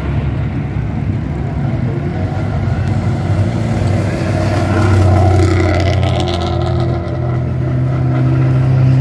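Engines of Renault Clio race cars running at low revs as they roll past one after another. The engine sound swells louder about five seconds in and again near the end.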